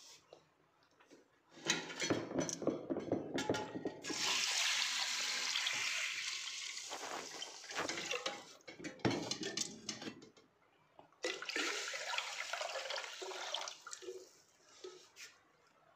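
Water poured from a metal vessel into a pressure cooker, in two long pours, with clinks and knocks of the metal pots before and between them.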